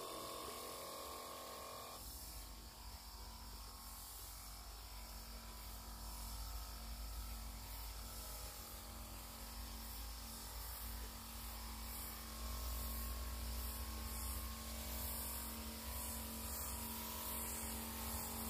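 Knapsack sprayer spraying a fine mist: a steady hiss with a low rumble underneath and a faint steady hum. It gets a little louder in the second half.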